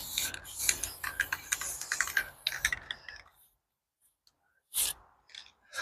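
Aerosol spray-paint can hissing in short, uneven spurts for about three seconds, then stopping; another brief spurt near the end.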